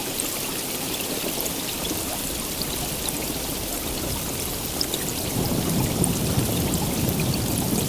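Steady heavy rain: an even hiss with scattered drop ticks. A low rumble builds in underneath about five seconds in.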